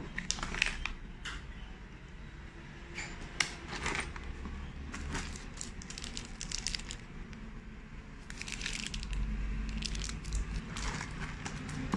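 Hands rummaging in a smart door lock's packaging: clear plastic bags of small metal screws and fittings crinkling and clinking against each other, with cardboard rustling, in irregular bursts.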